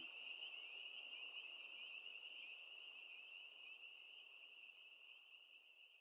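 Faint, steady high-pitched chirring of insects, part of a forest nature-sound layer, fading out slowly.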